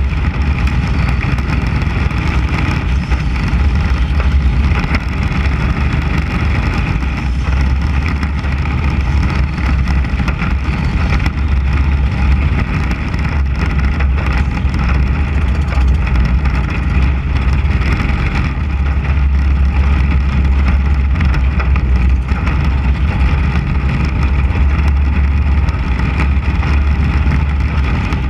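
Mini Cup race car's 600cc motorcycle engine running hard at racing speed, heard on board. The sound is loud and steady, with a strong low rumble beneath the engine note.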